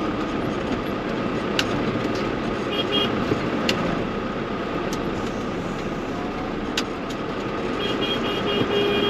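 Tractor engine running steadily, an even noisy drone, with a few sharp clicks and short runs of quick high beeps about three seconds in and again near the end.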